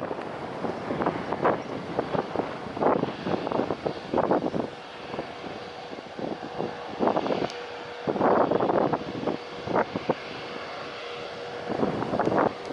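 Jet airliner engine noise from an aircraft near the runway, with a steady hum coming in about halfway, over gusts of wind buffeting the microphone.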